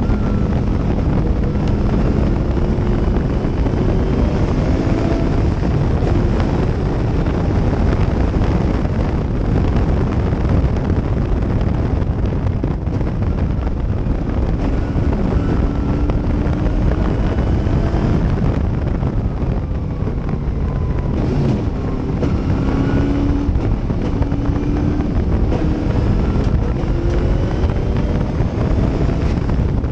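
Race car engine of a Gentry Cobra under hard acceleration, its note climbing again and again as it pulls up through the gears, with a falling note as it slows about two-thirds of the way through. Heavy wind buffeting on the open-cockpit microphone runs under it.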